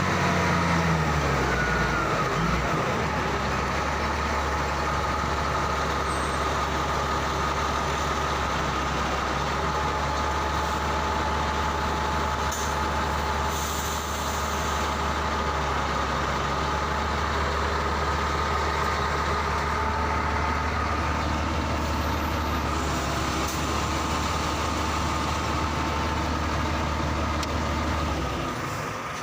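Heavy diesel engine dropping from higher revs to a steady low idle about a second in, then idling evenly until its sound stops near the end.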